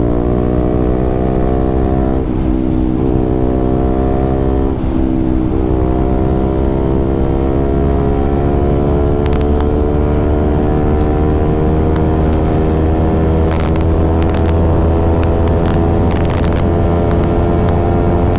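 KTM RC 200's single-cylinder engine running through an SC Project aftermarket exhaust while riding. The note dips briefly about two and five seconds in, then climbs slowly in pitch as the bike gathers speed.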